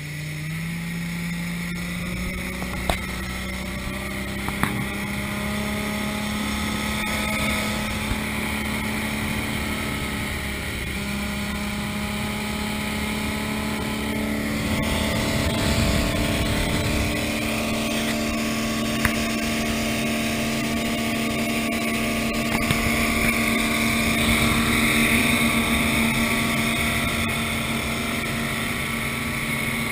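Engine of a 21-foot Four Winns cuddy cabin boat running under way; its pitch rises over the first second or two and then holds steady. Wind and water noise run beneath it.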